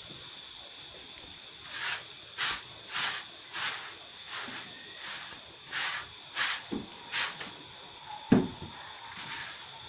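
A pony moving about in a wooden stall: a series of short rustles and one heavy thump a little after eight seconds, over a steady high hiss.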